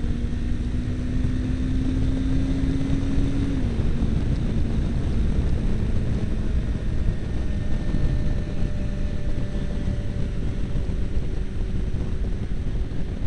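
Motorcycle engine running steadily on the move, under heavy wind rumble on the microphone. The engine note drops a little about four seconds in.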